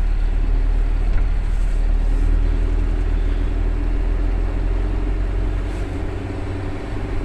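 Inside a moving truck's cab: the engine's steady low drone with road noise, easing off a little near the end.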